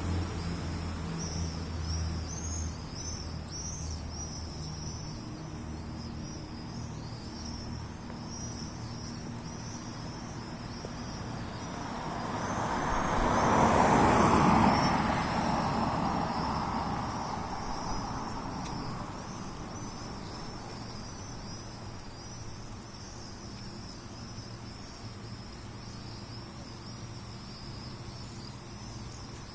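A road vehicle passes, its noise swelling to a peak about halfway through and then fading away, over continuous high insect chirping. A low engine hum fades out in the first few seconds.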